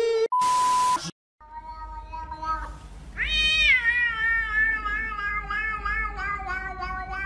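A short, steady beep with a hiss at the start, then a grey cat meowing: a couple of lower meows, then about three seconds in a long, drawn-out meow that jumps up in pitch and slowly sinks, held for several seconds.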